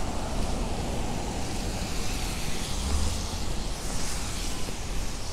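City street traffic: a steady low rumble of motor vehicles with tyre hiss on wet pavement, one vehicle swelling past about three to four seconds in.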